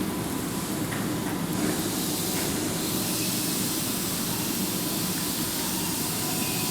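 Keihan 7200 series electric train at the platform, giving a steady hiss over a low rumble.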